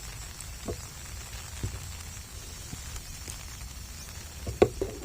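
Low wind rumble on the microphone outdoors, with a few short soft knocks and a louder cluster of them near the end.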